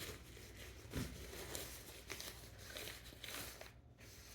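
Faint rustling and crinkling of a double-layered shower cap, satin lining inside and waterproof outer, being handled and pulled on over the hair, with a soft knock about a second in.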